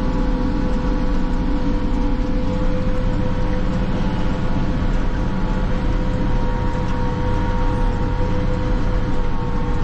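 John Deere 772BH motor grader running steadily under load as it plows snow, heard from inside the cab: a constant low engine drone with a steady whine over it.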